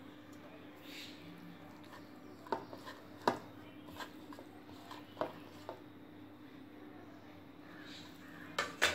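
A hand mixing a damp chilli-and-turmeric spice paste in a bowl, with a few sharp knocks against the bowl, two close together near the end, over a faint steady hum.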